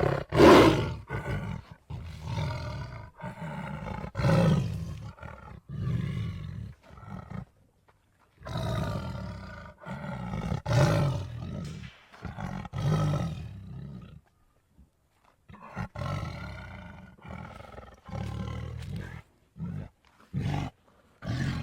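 Were-cougar creature sound effect: a string of big-cat roars and snarls broken by short pauses, with a longer pause about two-thirds through and a few short snarls near the end.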